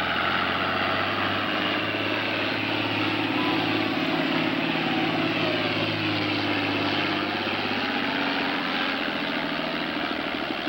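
Farm-stock diesel pulling tractor's engine running hard under full load as it drags a weight-transfer sled, a steady loud note that sags in pitch and eases off in the last few seconds.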